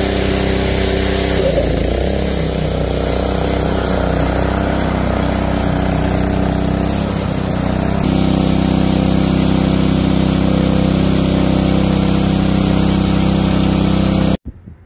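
Billy Goat PR550-H power rake's single-cylinder Honda 5.5 hp engine running steadily with the flail blades lowered. The sound gets a little louder and shifts in pitch about eight seconds in, and cuts off abruptly just before the end.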